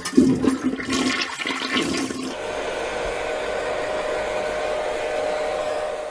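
Toy dollhouse's electronic toilet-flush sound effect: a sudden rush of flushing water that settles into a steady running-water hiss and fades out near the end.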